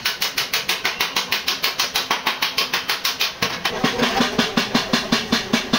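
A power tool knocking rapidly and evenly, about ten strikes a second, with a low hum pulsing in the same rhythm joining in a little past halfway.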